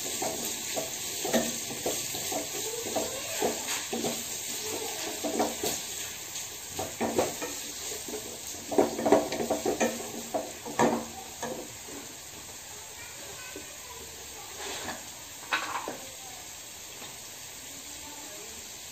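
Sliced onions and dried red chillies sizzling in oil in a nonstick pan, stirred with a wooden spatula: quick scraping strokes over a steady hiss. The stirring is busiest in the first two-thirds, stops about twelve seconds in, and comes back briefly for a few strokes a little later.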